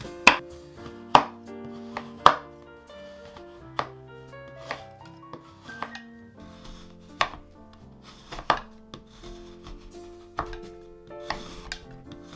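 Chef's knife chopping a chocolate bar on a wooden cutting board: irregular sharp knocks of the blade through the chocolate onto the board, about one a second, loudest in the first few seconds. Background music with held notes plays underneath.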